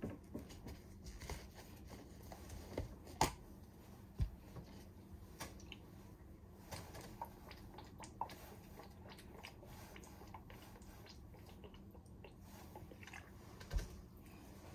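Faint, scattered small clicks and soft handling noises in a quiet room, with a few sharper ticks.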